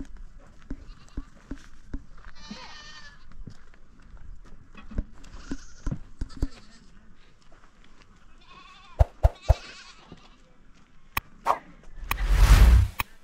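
Goats bleating now and then: three separate wavering bleats. Near the end come a few sharp clicks and a loud whoosh.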